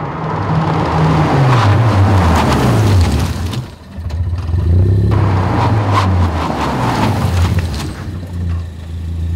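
Ford Focus ST's turbocharged four-cylinder engine running as the car drives by at low speed, its pitch falling over the first few seconds and then holding steady. The sound drops away briefly about four seconds in.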